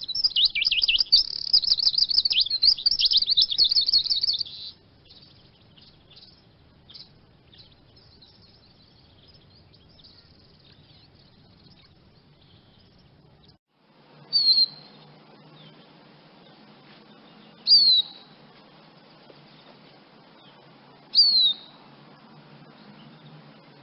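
Eurasian siskin singing a fast, loud twittering song for about four seconds, then scattered faint notes. After a break, three single descending whistled calls, each a few seconds apart.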